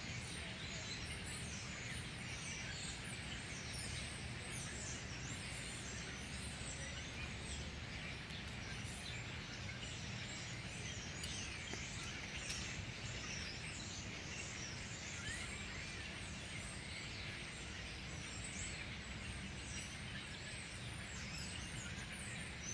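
A large flock of birds calling together: many short chirps and falling calls overlapping in a continuous chatter, over a steady low rumble.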